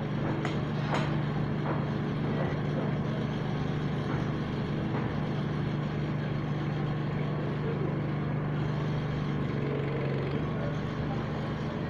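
A motor running steadily with a low, even hum, with scattered light clicks and knocks over it.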